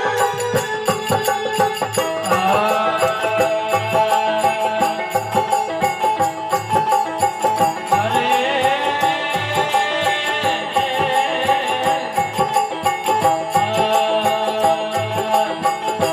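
Instrumental interlude of a folk bhajan: an electronic organ plays the melody in sustained notes with a few sliding runs, over a steady drum beat.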